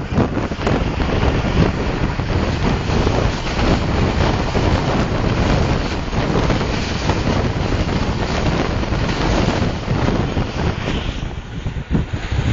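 Karakoram Express passenger train running at speed: steady wheel-and-rail noise mixed with heavy wind buffeting the microphone, briefly dropping in level near the end.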